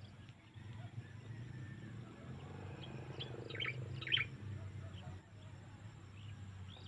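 Small birds chirping: a few short, scattered chirps, the loudest two a little past the middle, over a steady low rumble.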